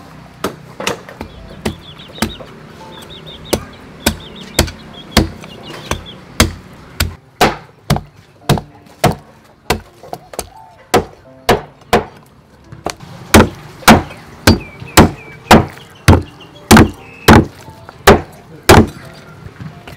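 Meat cleaver chopping a raw whole chicken into pieces on a round wooden chopping block: a steady run of sharp whacks, about one and a half a second. The strokes grow louder about two-thirds of the way through.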